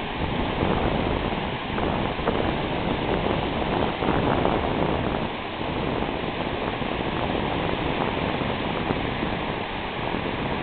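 Ocean surf washing up the beach: a steady rushing noise that swells a little every couple of seconds.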